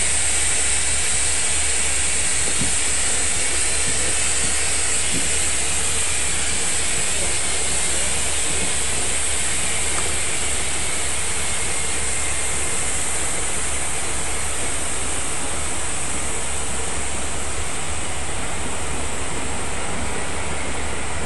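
Steady hiss of steam escaping along a standing steam-hauled train, its locomotive LMS Black Five 45407 waiting at a signal.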